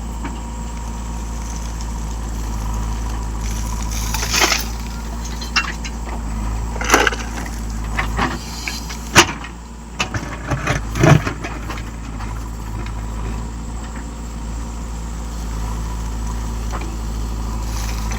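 Tractor engine running steadily with a low hum, with a few sharp knocks and clatters over it, the loudest near the middle.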